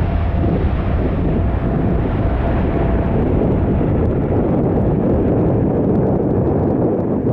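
Jet airliner's engines making a loud, steady low rumble as the aircraft passes, with wind on the microphone.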